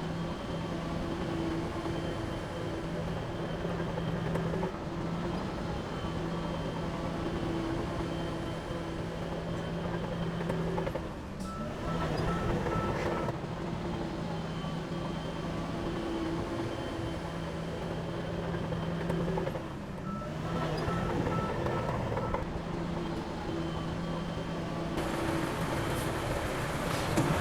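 Heavy diesel earth-moving machinery engine running steadily. A reversing alarm beeps briefly about twelve seconds in and again about twenty seconds in.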